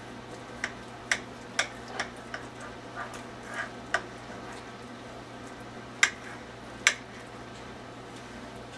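Knife clicking and tapping against a glass baking dish while cutting through a pot roast: about ten short, sharp clicks, the two loudest about six and seven seconds in, over a steady low hum.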